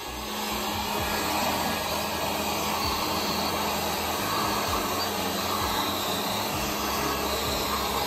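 Small corded electric blower running steadily: an even rush of air over a constant motor hum.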